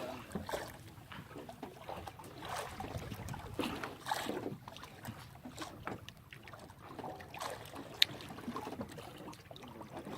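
Water lapping and splashing irregularly against a small fishing boat, with one sharp click about eight seconds in.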